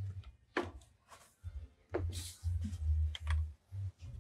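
Handling noise from the phone's own microphone as the phone is picked up and moved: low rumbling bumps and rubbing, broken by a few sharp clicks and a short scrape.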